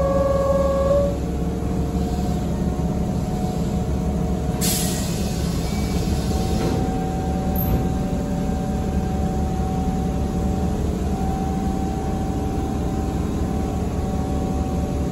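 Keihan 6000 series train standing at the platform with a steady low hum. A steady tone stops about a second in, and about four and a half seconds in a short sharp hiss of air comes as the doors close.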